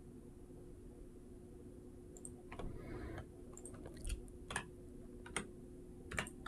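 Computer mouse clicks and keyboard key presses: a scattering of faint, sharp clicks, starting about two seconds in, over a faint steady hum.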